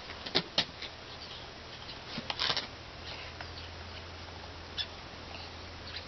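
Sharp clicks and taps from the ABS plastic body of a WE-Tech G39K gas-blowback airsoft rifle as it is handled and turned over, with a short loud clattering rattle about two and a half seconds in.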